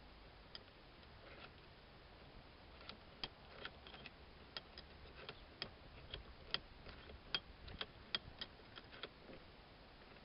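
Light clicks and taps, irregular, about two or three a second and thickest in the second half, from screws and nuts being fitted back onto a Wilton bench vise.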